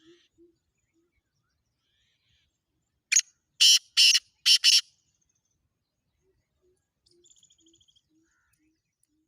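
Black francolin giving its loud, harsh call: a quick burst of four or five grating notes about three seconds in. A faint low note repeats steadily in the background, with a brief faint high trill near the end.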